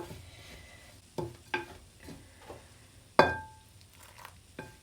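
A spoon stirring the sticky date, nut and cocoa mixture in a bowl, with a few clinks of the spoon against the bowl. The loudest clink comes about three seconds in and rings briefly.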